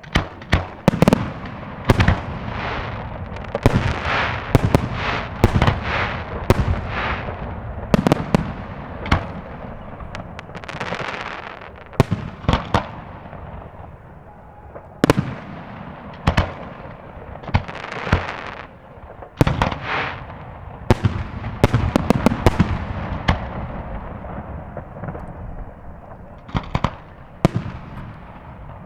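A fireworks display: many sharp bangs of bursting shells at irregular intervals, some in quick clusters, each followed by crackling and hissing as the stars fall.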